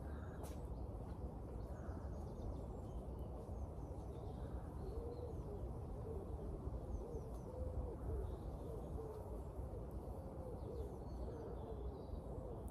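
A bird cooing: a low call repeated many times from about five seconds in, over a steady low rumble, with faint high chirps of small birds.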